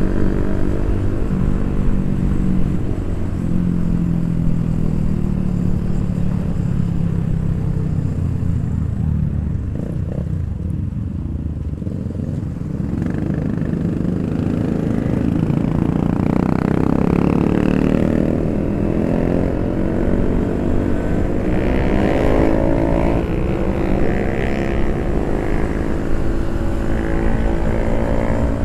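Motorcycle engines on the move in a group ride. The pitch holds and sags for the first dozen seconds, then climbs as the bikes accelerate about halfway through, with more than one engine heard together near the end.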